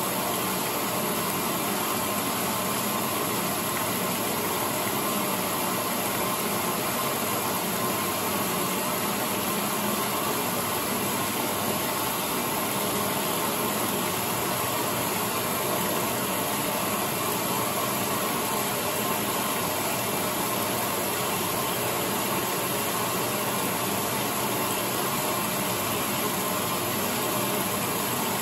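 Late-1970s Maytag A806 top-loading washing machine running through its cycle, giving a steady, even noise with no clear rhythm.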